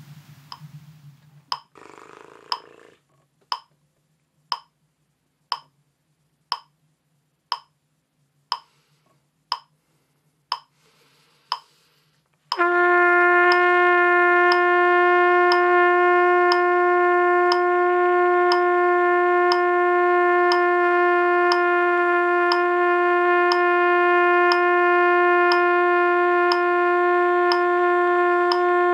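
Metronome clicking once a second at 60 BPM; about twelve and a half seconds in, a trumpet comes in on a single long, steady held note over the clicks, the start of a long-tone exercise.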